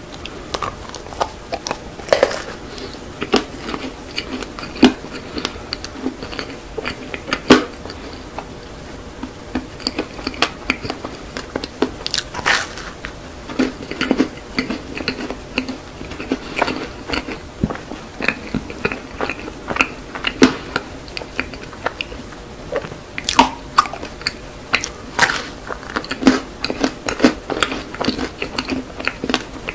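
Close-miked eating of a cream-filled macaron: bites into the crisp shell and chewing, with irregular sharp crunches and crackles between softer, wetter chewing.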